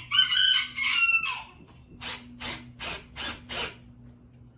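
A rooster crows once, loud and high, with a falling end, in the first second and a half. Then five short rasping strokes come evenly, about two and a half a second, as a screw is worked into the wooden latch of the coop.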